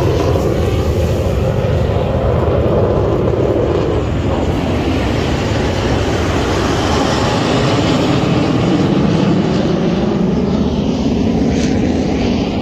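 Jet engines of a formation of Hawk Mk132 jet trainers flying low overhead: loud, steady jet noise with a slowly shifting pitch.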